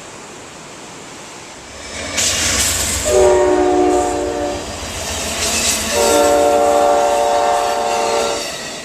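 Passing train with a low rumble, sounding its multi-tone air horn twice: a shorter blast, then a longer one.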